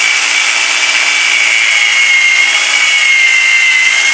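Electric drill running at a steady speed with a high whine, cutting a countersink with a Time-Sert countersink bit in a stripped header bolt hole of a 454 big-block Chevy cylinder head.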